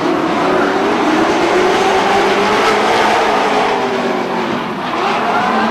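Several stock car engines running at racing speed over a dense roar, their pitch slowly rising and falling, with engines rising in pitch near the end.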